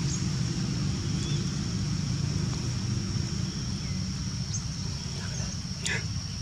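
Steady low outdoor rumble with a constant high-pitched whine over it, and a few faint short squeaks, one falling in pitch near the end.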